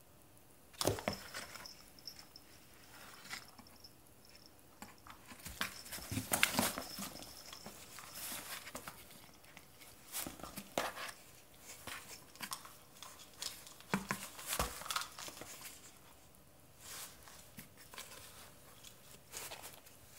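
A Bengal cat pawing and scrambling about a cardboard box and batting a plastic ball: irregular scrapes, scuffs and light knocks on the cardboard.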